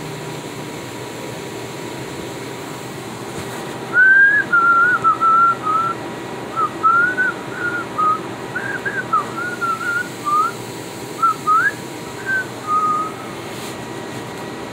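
A woman whistling through pursed lips: a run of short, wavering notes, each a single clear pitch, starting about four seconds in and stopping near the end, over a steady low background hum.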